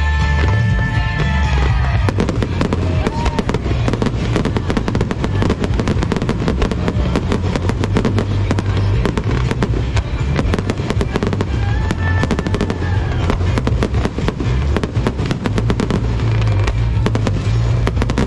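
Fireworks display: a rapid, dense string of bangs and crackles over loud music with heavy bass. The crackling thickens about two seconds in and thins out a couple of seconds before the end.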